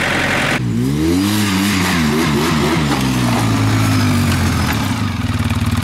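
The John Deere 110 backhoe's engine runs briefly, then a quad ATV's engine revs up and down over and over before settling into a steady idle near the end.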